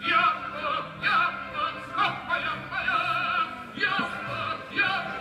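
Operatic singing with a wide vibrato, in phrases that start afresh about once a second.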